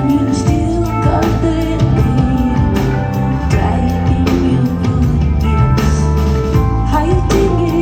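A live rock band playing a song: a steady drum beat, deep bass and keyboards, with a woman singing over them.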